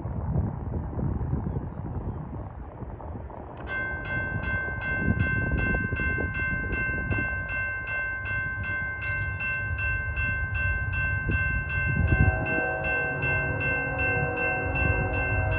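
Diesel freight locomotive's air horn, a chord of several notes, blowing one long continuous blast that starts about four seconds in, with lower notes joining near the end. A low rumble from the approaching train runs underneath.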